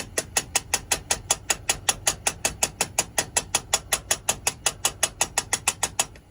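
Small peen hammer tapping quickly and lightly on the end of an aluminum rivet set through leather, peening it over, about six or seven even strikes a second.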